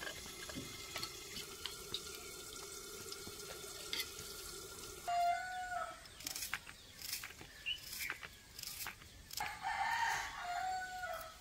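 Light clicks of snails and water in steel bowls, then a knife cutting onion and green chillies by hand in quick short clicks. A rooster crows twice: briefly near the middle and longer and louder near the end, the call holding one pitch and then dropping.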